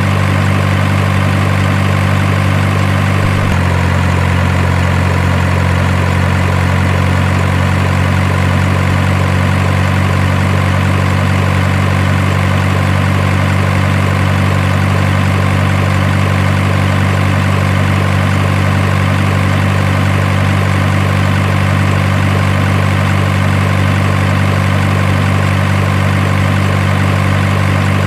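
Steady diesel-truck engine idling sound, with a small shift in its tone about three and a half seconds in.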